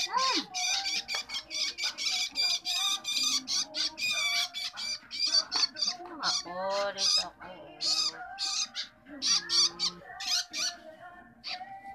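Long-tailed shrike nestlings begging to be fed: a fast run of high-pitched calls that grows sparser in the second half.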